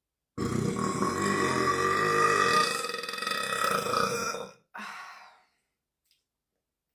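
A woman's deliberate, very long burp lasting about four seconds, followed by a short, weaker second burp.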